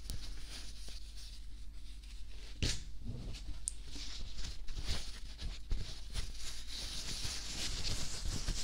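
Close-up scratching, rubbing and small clicks of fingers and a tissue against the silicone ears of a binaural dummy-ear microphone, with one sharper tap about two and a half seconds in. The rustling grows toward the end.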